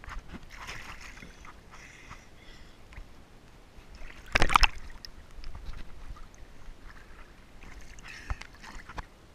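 A child jumping into a swimming pool: one loud splash about four seconds in, with lighter water sloshing and lapping close to the microphone before and after it.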